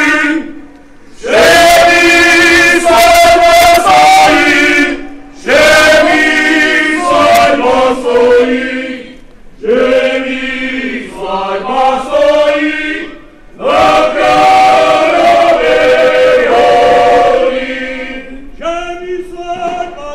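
Male folk choir singing in unison, in phrases of about four seconds with short breaks for breath between them, dropping quieter near the end.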